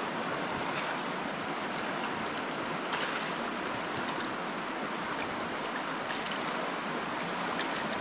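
The glacier-fed Hoh River flowing, a steady rush of water.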